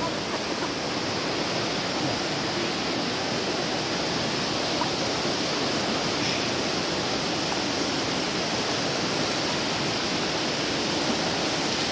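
River water rushing steadily, an even hiss with no splashes or breaks.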